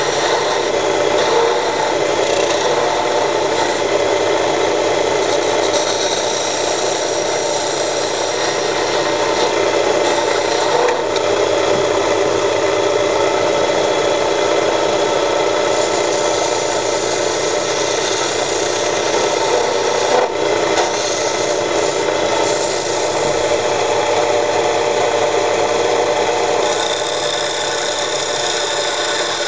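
Homemade belt-driven wood lathe running while a hand-held turning tool cuts the spinning wooden blank: a steady scraping hiss of the cut over the motor's hum. One short knock about twenty seconds in.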